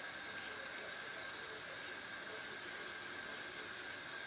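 Steel pot of water and sliced mushrooms at a rolling, foamy boil on the stove: a steady hiss of bubbling water.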